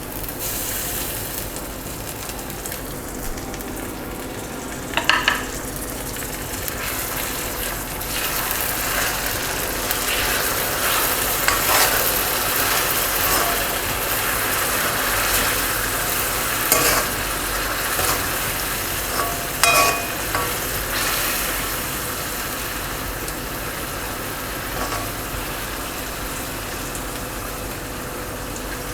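Onion and tomato purée masala sizzling in hot oil in a pan while it is stirred with a spatula, a steady frying hiss with a few sharp knocks and scrapes of the spatula against the pan.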